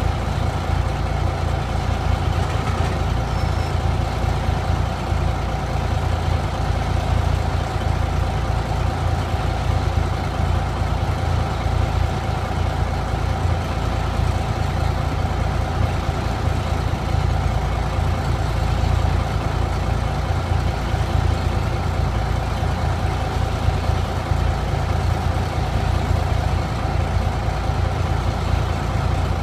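Small industrial 'critter' locomotive's engine running steadily while it shifts a train of cars: a steady low rumble with a faint constant whine above it.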